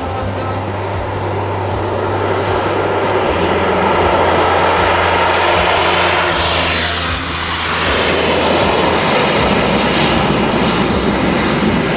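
Cessna Citation CJ2 business jet's twin turbofan engines running at high power as it speeds down the runway toward and past the listener, the roar building over the first few seconds. A high turbine whine drops in pitch as the jet goes by, about two-thirds of the way through.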